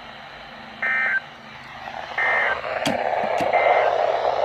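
Three short bursts of EAS digital data tones, each about a third of a second and evenly spaced: the end-of-message signal that closes an Emergency Alert System broadcast. They sound over a steady radio hiss, with two clicks near the middle and a louder rush of static in the last second and a half.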